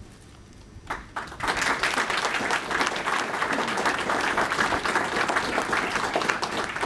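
Audience applauding in a hall: a few scattered claps about a second in, then the whole room clapping steadily until it stops near the end.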